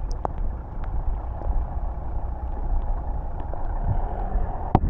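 Steady low rumble of wind and rain on the microphone in a downpour, with a few sharp ticks, the loudest near the end.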